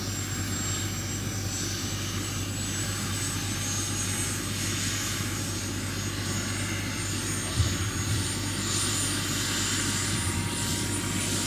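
The small gas-turbine engine of a large RC scale Lama SA-315B helicopter runs on the ground with the rotor turning, giving a steady turbine whine that rises slowly in pitch as it spools up. There is one short thump a little past the middle.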